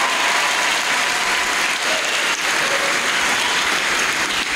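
Congregation applauding steadily, a dense even clapping from a large crowd in a big hall.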